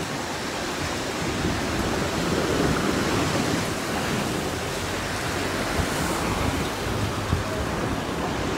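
Heavy rain pouring during a thunderstorm, a steady even rushing hiss.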